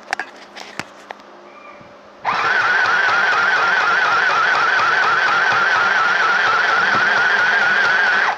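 Mini electric sewing machine running and stitching fabric: a steady motor whine that wavers slightly, starting about two seconds in after a few light clicks and cutting off abruptly near the end.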